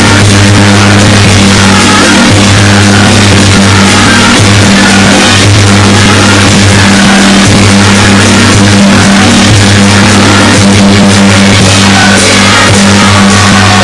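Loud traditional Chinese instrumental music, dense and continuous, with steady low held tones underneath.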